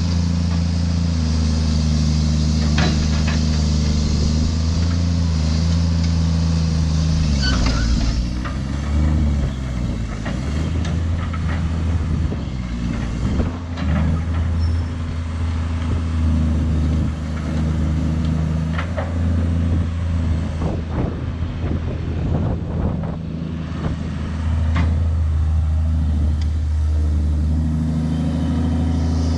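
A heavy vehicle's engine running steadily, its note shifting up and down through the middle stretch, with a few sharp knocks over it.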